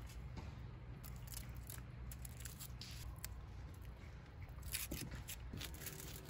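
Scattered light clicks and scrapes of food being cut and handled during camp cooking, over a low steady hum.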